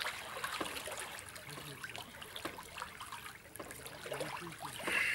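Swimming-pool water splashing and lapping lightly as people swim through it, with many small scattered splashes.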